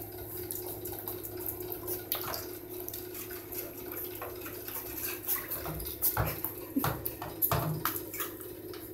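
Baby raccoons moving about in a bathtub with water: light splashing and dripping with scattered clicks and knocks, busiest for a couple of seconds near the end.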